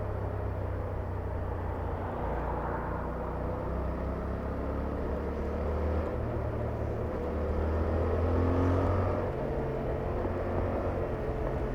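Yamaha R7's 689 cc parallel-twin engine on its stock exhaust, under way with the revs climbing steadily, loudest about eight to nine seconds in, then easing off suddenly just after nine seconds. Wind noise on the microphone runs underneath.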